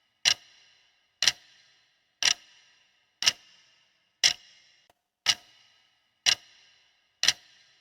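Countdown-timer clock tick sound effect, eight sharp ticks at one a second, each with a short metallic ring: the answer time running out on a quiz question.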